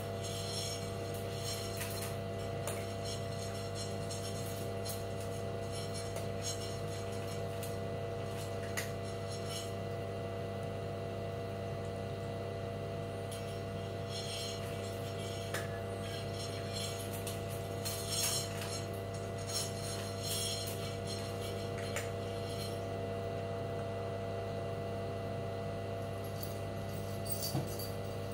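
Ginger cat eating dry kibble from a stainless steel bowl: runs of quick crunching and light clinks against the metal bowl, coming and going, over a steady background hum.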